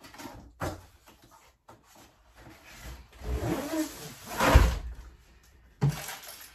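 Handling noises: a knock, then a longer scraping rattle that peaks a little after four seconds in, and a sharp knock near the end.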